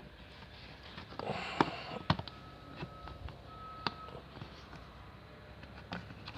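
Plastic B-pillar trim of a Holden Commodore VF being pried loose by hand: a rustle of handling, then several sharp clicks and snaps from the trim clips, the loudest about one and a half and two seconds in. A faint steady electronic beep tone sounds twice between the clicks.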